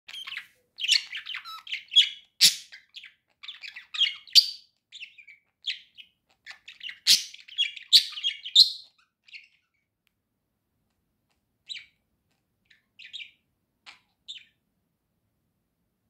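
Budgerigar singing: a quick, busy warble of high chirps and clicks for about nine seconds, then only a few scattered chirps.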